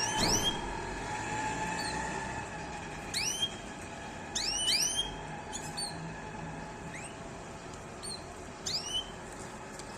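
Canaries giving short, sharp upswept chirps, singly or in quick groups of two or three, every second or two, over a steady low background hum.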